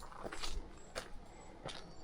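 Footsteps of a person walking along a trail at an easy, steady pace, about three steps in two seconds.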